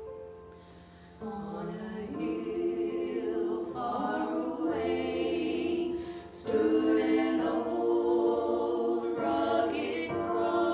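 A sustained keyboard chord, then from about a second in a group of voices singing a slow hymn in long held notes.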